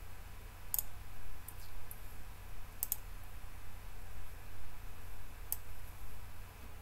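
Computer mouse clicking a few times, including a quick double click about three seconds in, over a steady low hum.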